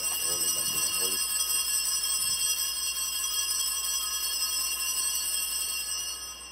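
Altar bells shaken in a sustained ringing for the elevation of the chalice at the consecration, dying away near the end.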